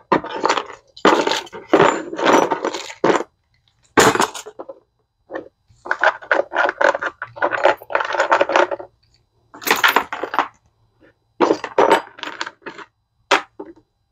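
Metal hand tools clinking and clattering against each other and the plastic toolbox as they are handled and set into it, in a string of short, irregular bursts with brief pauses between.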